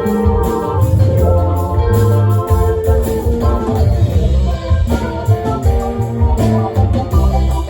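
Live band playing an instrumental jam: guitar and organ over a heavy bass line, with drums keeping a steady beat.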